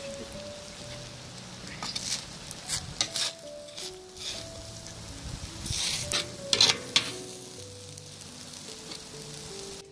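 Metal spatula stirring and scraping in a large pot of steaming broth and rice, with a few sharp scrapes about two-thirds of the way in, over background music with a slow instrumental melody.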